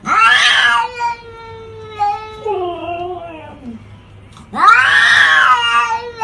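A domestic cat yowling in long drawn-out calls. A loud call starts at once and holds a steady pitch for about two seconds, a lower wavering call falls away after it, and another loud call begins near the end.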